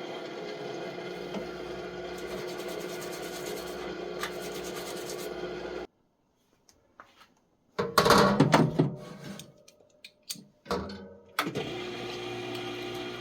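Solvent parts washer's pump running with a steady hum. It cuts off suddenly about six seconds in, and after a short silence a few loud, irregular noises follow before the hum starts again near the end.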